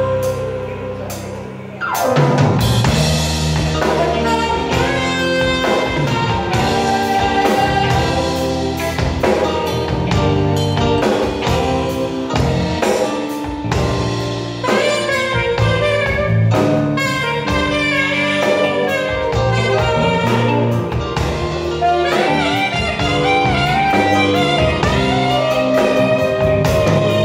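A live jazz band playing: a held chord fades for about two seconds, then the drum kit and the band come in, with a saxophone carrying the melody over drums and keyboard.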